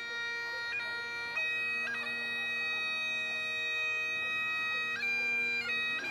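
Great Highland bagpipes playing a slow tune: the drones hold one steady note under the chanter's melody. The chanter changes note a few times in the first two seconds, holds one note for about three seconds, then moves again near the end.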